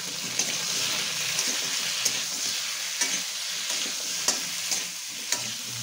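Cut vegetables (potato, pointed gourd, pumpkin) sizzling in hot oil in a metal kadai while a metal spatula stirs and turns them. A few sharp clicks of the spatula against the pan come through the steady frying hiss.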